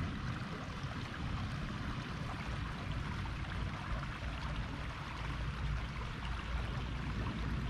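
Steady rushing outdoor noise with a heavy, uneven low rumble underneath.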